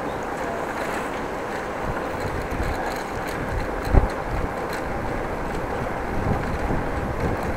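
Steady wind rumble on an action camera's microphone, with road noise from a moving bicycle. A single thump comes about four seconds in.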